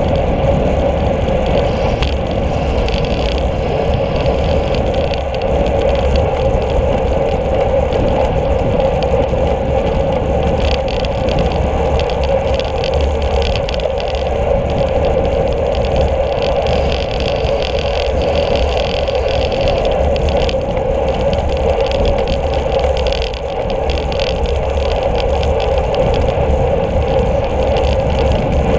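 Steady rush of wind and road noise picked up by a camera mounted on a road bike's handlebars: wind buffeting the microphone with a low rumble, and the hum of tyres and frame vibration on asphalt.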